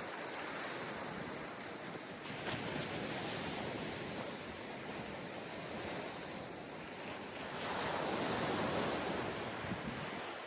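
Surf washing onto a sandy beach, a continuous wash that swells as a wave breaks about eight seconds in, with some wind on the microphone.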